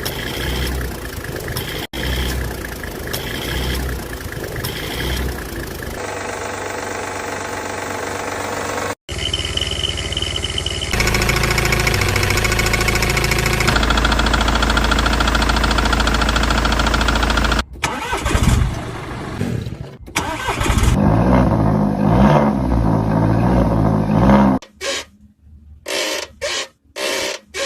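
A string of short car engine recordings spliced together, each cut off abruptly: engines running, starting and revving, some pulsing about once a second, others stuttering on and off near the end. They are examples of noises that point to car problems.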